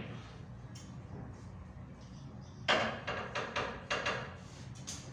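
Pool balls knocking on a sinuca table: one sharp crack about two and a half seconds in, followed by a quick run of lighter knocks that die away over the next second and a half.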